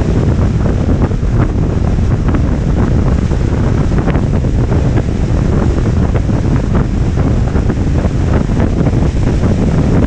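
Wind buffeting the microphone of a camera on a moving car: a loud, steady low rumble with constant crackling gusts that covers any engine sound.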